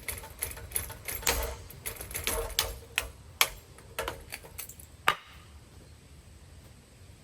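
Irregular clicks and knocks from a ceiling fan being handled, about a dozen in the first five seconds, ending with a sharper knock. After that only a faint steady low sound remains.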